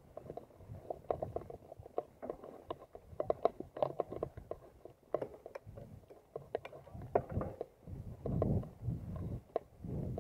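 Mountain bike rattling over rough, bumpy grass: irregular clicks and knocks from the bike and its handlebar mount, with rumbling gusts of wind on the microphone near the end.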